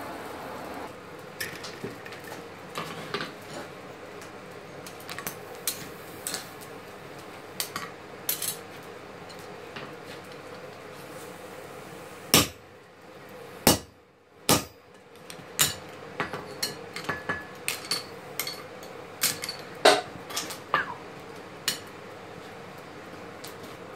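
Irregular metallic clinks and knocks of blacksmithing tools on a steel anvil: tongs, a hammer and a steel blade being picked up and set down, with a few louder, ringing knocks about halfway through and again near the end.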